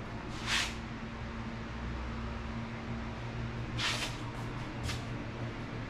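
Garage room tone: a steady low hum, broken by two short hissing scrapes about half a second in and just before four seconds, and a fainter one near five seconds.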